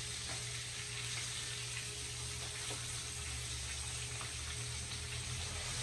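Hot oil sizzling steadily in a skillet where a whole red snapper is frying.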